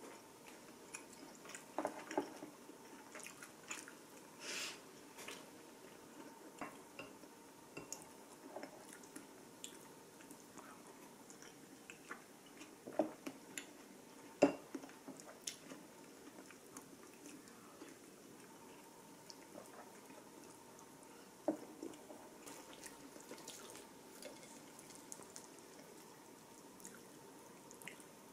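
Quiet, scattered small taps and clicks of handling. A faint steady hum runs underneath, a short hiss comes about four and a half seconds in, and two sharper knocks fall near the middle.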